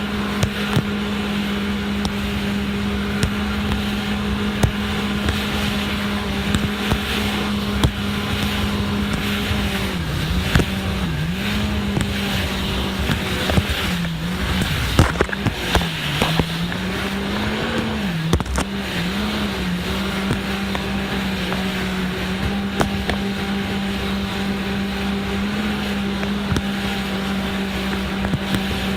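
Jet ski engine running at a steady speed, its pitch dipping and rising several times about halfway through as the revs change, then holding steady again, with a steady hiss underneath.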